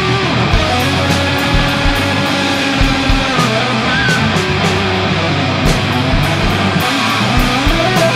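Band playing heavy metal live: distorted electric guitars and bass guitar over drums, with repeated kick-drum beats and cymbal strokes.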